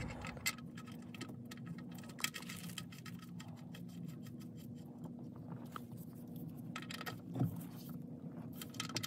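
Faint metallic clicks and clinks of a ratchet and socket on the oil drain plug, with a few sharper ticks, as the plug is threaded back into the oil pan and tightened. A faint steady low hum runs underneath.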